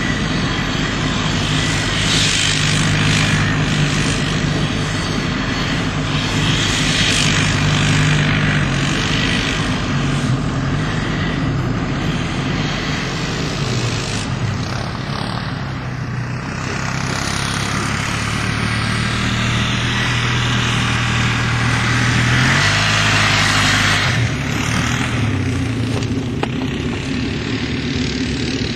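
ATV engine running under load, its pitch rising and falling with the throttle and changing sharply near the end, over a steady hiss.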